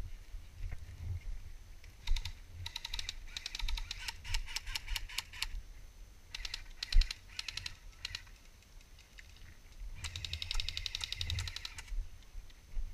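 Airsoft electric rifles firing full-auto bursts, a rapid rattle of clicks. There are three bursts: about 2 seconds in for roughly three seconds, about 6 seconds in for two seconds, and about 10 seconds in for a second and a half. The sound is dulled by a closed waterproof camera housing.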